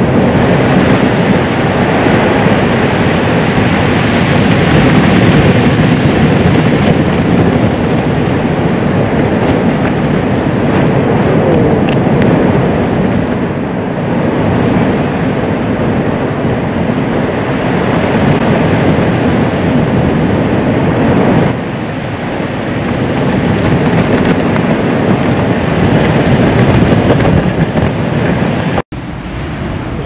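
Volcanic vent erupting, with lava spattering from the crater: a loud, steady rushing noise. It dips briefly about two-thirds of the way through and breaks off abruptly near the end.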